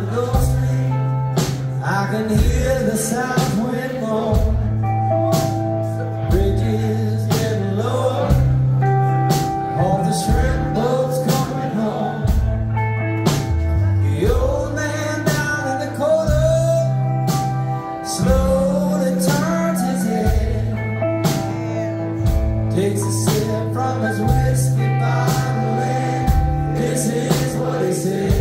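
Live rock band playing: male lead vocals over electric guitars, bass, keyboard and drums, heard from the audience.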